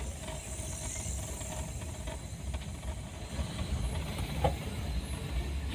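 Steady low engine and road rumble heard from inside a Toyota Kijang's cabin as it drives, with a brief knock about four and a half seconds in.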